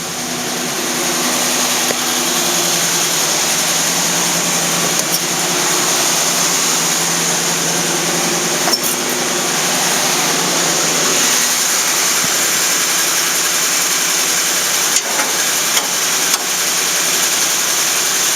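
GM crate 350 small-block Chevy V8 idling steadily just after a cold start. It breathes through stock exhaust manifolds with no headers, so it is not extremely loud.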